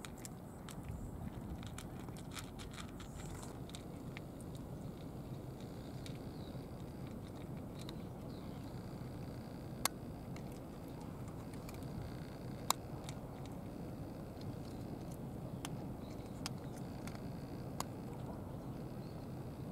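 Cats eating from plastic dishes, chewing and crunching dry kibble, with scattered sharp clicks of teeth on the pellets. The two loudest clicks come about ten and thirteen seconds in, over a steady low rumble.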